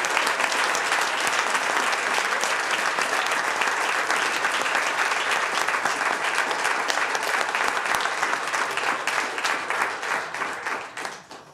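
A large crowd applauding, dense steady clapping that tapers off near the end.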